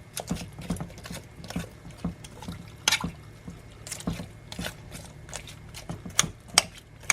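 A spoon scraping and clicking as garlic is spooned into the stew pot: a run of short, irregular wet scrapes and taps, a few each second.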